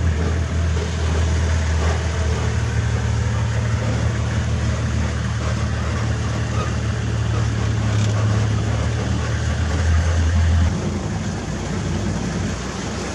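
Open safari vehicle's engine idling with a steady low hum. About eleven seconds in, the steady hum gives way to a rougher low rumble.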